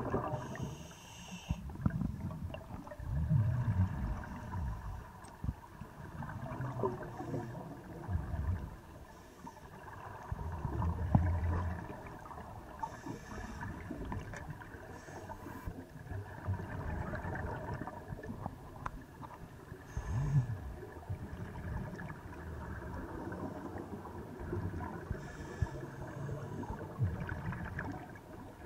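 Scuba divers' exhaled bubbles from their regulators, heard underwater as low, muffled surges that come every few seconds over a faint steady hiss.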